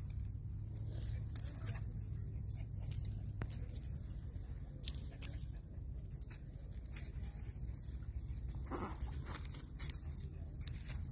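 Whoodle puppies scampering on grass strewn with dry leaves: scattered light crunches and rustles over a steady low rumble of wind on the microphone.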